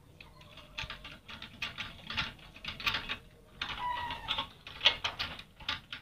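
Irregular clicking and scraping of hands handling toilet fittings close to the microphone, with a brief squeak about four seconds in.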